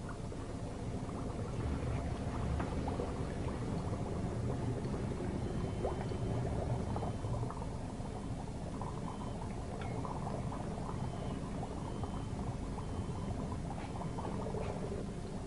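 Dry ice bubbling in water, a steady boiling-like burble with scattered small pops, as the solid carbon dioxide turns to gas.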